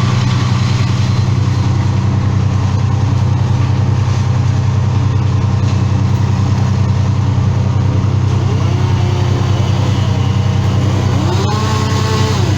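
Engine running steadily at constant speed. Near the end a higher tone rises in pitch and holds for about a second.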